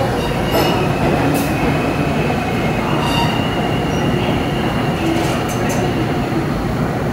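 R160 New York City subway train running through the tunnel, heard from inside the car: a steady rumble of wheels on rail with a thin, high wheel squeal and a few sharp clicks over rail joints.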